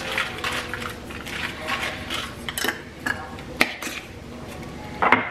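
Sesame seeds shaken from a small spice jar into a plastic-lined slow cooker: a quick run of light rattling ticks, then two sharper clicks from the jar and its lid about two and a half and three and a half seconds in.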